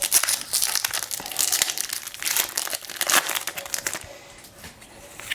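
Foil Pokémon booster-pack wrapper crinkling as it is torn open and handled, dense for about four seconds and then quieter near the end.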